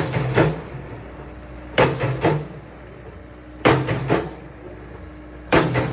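Skid-steer-mounted Danuser Hammer post driver pounding a wooden fence post into the ground: a sharp strike about every two seconds, each followed by a lighter second knock, four times, with the loader's engine running steadily underneath.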